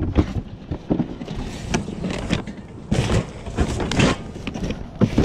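Household items being handled and shifted about in a box: a string of irregular knocks and clatters with rustling between them.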